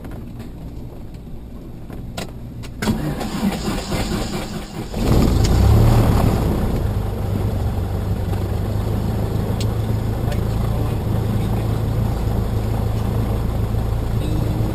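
Cessna 172K's four-cylinder Lycoming engine being started: the starter cranks it for about two seconds, the engine catches about five seconds in, runs up briefly, then settles into a steady idle.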